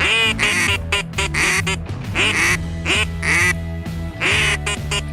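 Duck call blown in a string of loud, short quacks in small groups, calling to incoming ducks, over background music with steady low notes.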